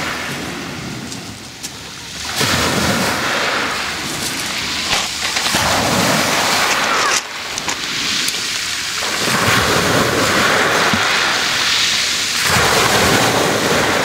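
Black Sea waves breaking on a pebble beach, crashing in loud surges every two to three seconds, with the hiss and clatter of pebbles dragged in the backwash.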